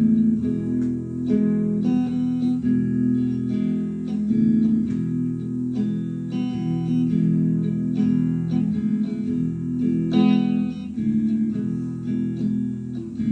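Solo electric guitar playing a blues song's instrumental intro: picked chords and single notes ringing on, with no voice.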